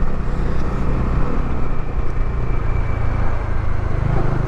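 Steady engine drone and wind rush of a moving motorcycle, heard through a lavalier mic inside the rider's helmet. The low engine note gets louder about four seconds in.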